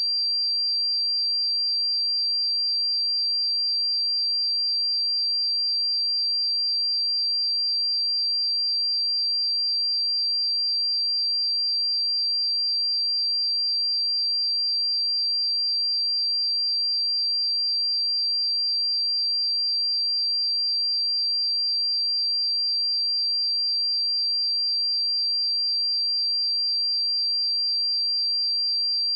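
A pure 4724 Hz sine-wave test tone, a single high-pitched steady pitch held without change.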